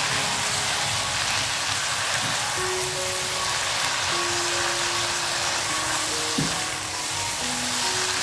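Bitter melon and dried squid stir-frying in oil in a nonstick wok, with a steady sizzle as a spatula turns them. Light background music with short held notes plays over it.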